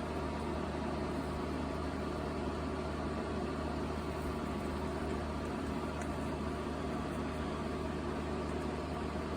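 Box fan running steadily: an even whir with a low motor hum under it.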